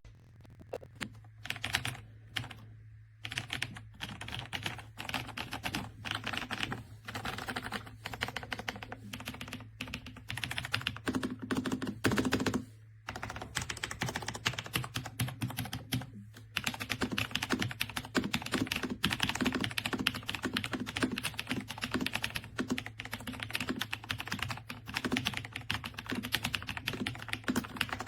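Fast typing on an AJAZZ AK820 mechanical keyboard with linear switches, a dense run of keystroke clicks with short pauses about 3 seconds in and again around 13 and 16 seconds.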